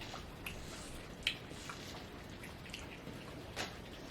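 Steady hiss of rain falling outside, with a few light clicks of a spoon against a bowl.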